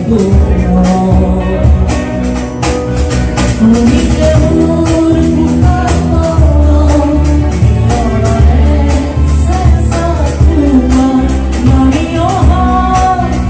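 Live band music in the room: a singer carrying a melody over guitar, a strong bass line and a steady percussion beat.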